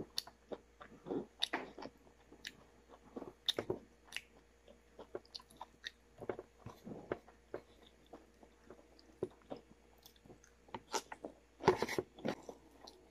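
A person eating close to the microphone: chewing with irregular wet smacks and small clicks of the mouth, and a louder burst of eating noise near the end.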